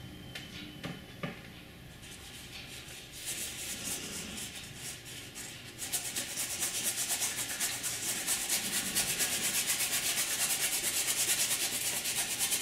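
Paintbrush bristles scrubbing paint onto canvas in rapid back-and-forth strokes, a dry scratchy rubbing. It starts soft after a couple of light knocks and turns louder and denser about six seconds in.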